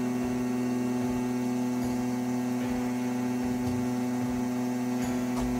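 Creality Falcon A1 enclosed laser cutter running as it cuts MDF, a steady even hum from its machine.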